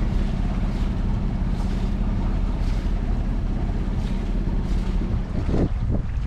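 Wind buffeting the microphone aboard a small sailboat underway, with water washing along the hull in recurring surges about once a second.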